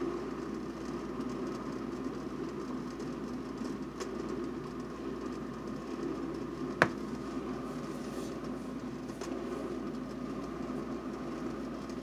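Topwit glass electric kettle heating water toward a simmer: a steady low rumble as small bubbles form on the heating plate. A single sharp click stands out about seven seconds in.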